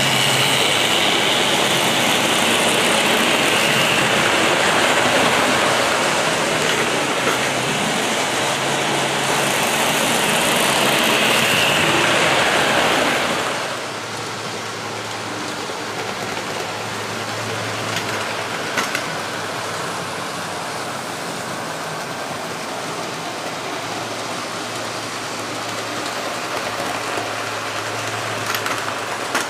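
OO gauge model trains running on the layout: a steady whirr and rumble of small electric motors and wheels on the rails, louder for the first half and dropping to a quieter run about 13 seconds in, with a couple of light clicks later on.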